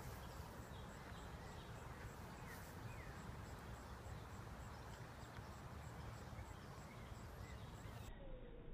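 Faint outdoor ambience: a steady low rumble, a few short faint bird chirps, and a faint high tick repeating about four times a second.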